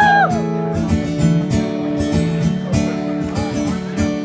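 Acoustic guitar strummed steadily, playing a song's intro chords. A few shouts from the crowd trail off right at the start.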